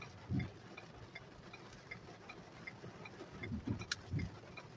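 Car turn-signal indicator ticking evenly inside the cabin, about two and a half ticks a second, with a few soft low thumps and one sharper click near the end.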